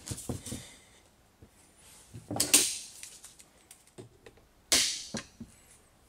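Clicks and knocks of a metal car window regulator and tools being handled on a wooden workbench, with two louder clattering bursts about two and a half and five seconds in.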